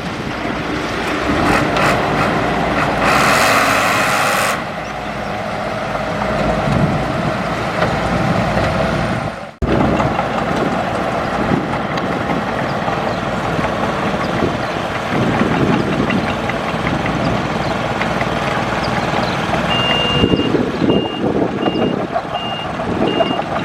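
Heavy earthmoving machinery engine running, with a burst of hiss about three seconds in and a sudden break just before the middle. A reversing alarm starts beeping at a steady pace near the end.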